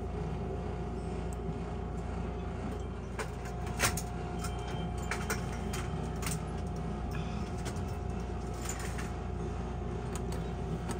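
Skill game room ambience: a steady low hum with a faint constant tone and scattered light clicks and taps, the sharpest about four seconds in.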